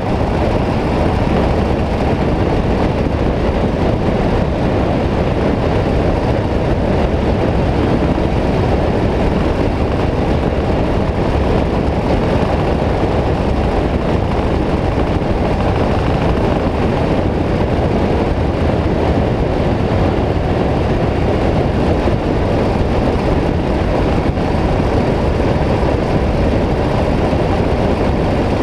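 Steady rush of wind and road noise on a motorcycle-mounted camera at a constant cruising speed, with the motorcycle's engine running underneath.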